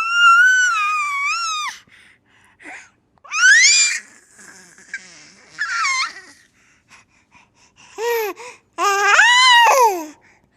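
A baby laughing in high-pitched squeals: a long squeal at the start, shorter ones around four and six seconds in, and a run of squeals near the end, with short pauses between.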